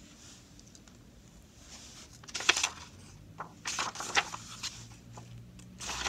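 Pages of a hardcover picture book being opened and turned: paper rustling and flapping in a few short bursts, the loudest a little before halfway.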